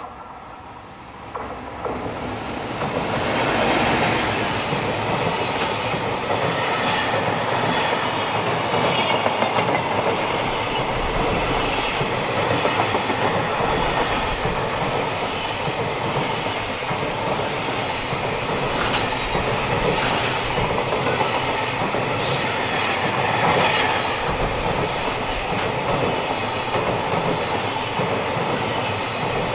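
JR Freight EF210 electric locomotive coming up and passing close, then a long freight train of container and tank-container wagons rolling by, wheels clicking rhythmically over the rail joints. The noise swells over the first few seconds as the locomotive draws level, then stays loud and steady.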